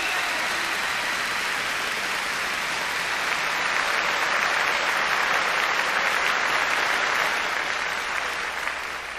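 Applause, a dense crowd clapping that grows louder about four seconds in, eases off near the end and then cuts off suddenly.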